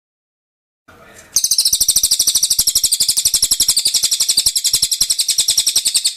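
Cililin songbird singing a long, rapid high-pitched trill of evenly repeated notes, roughly a dozen a second, beginning about a second and a half in and stopping abruptly near the end.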